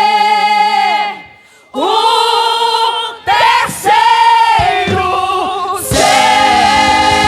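Women's church choir singing a gospel hymn in long, held notes with vibrato over backing music, with a brief pause about a second in. About six seconds in, a fuller, steady held chord comes in.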